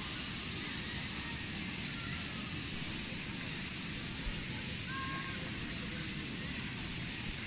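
Steady outdoor background noise: an even hiss over a low rumble, with a brief faint high call about five seconds in.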